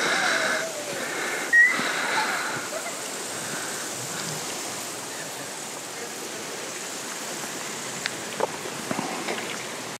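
Steady outdoor background noise with faint voices of people talking, a short high chirp about one and a half seconds in, and a few light clicks near the end.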